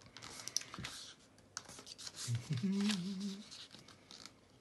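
A sheet of paper rustling and scraping as fingers pinch, lay over and crease its accordion pleats, with small sharp clicks of the paper. About halfway through a man briefly hums a wavering 'mmm'.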